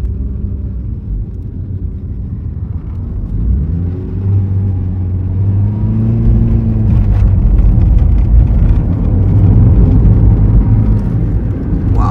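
Car driving, its engine and tyre rumble growing louder as it gathers speed, with the engine note rising and falling about halfway through.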